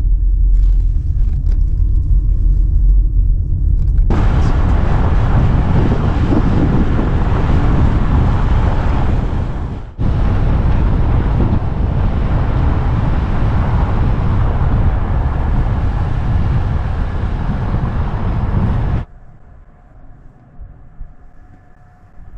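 Vehicle driving on a rough road: a loud steady rumble, joined about four seconds in by a heavy rushing noise. It breaks off briefly near the middle and drops suddenly to a faint hum about three seconds before the end.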